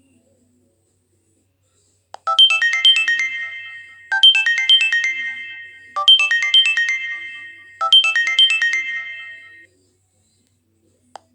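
Optus X Start 2 mobile phone playing a ringtone: a short melody of quick chiming notes, repeated four times, starting about two seconds in and stopping shortly before the end.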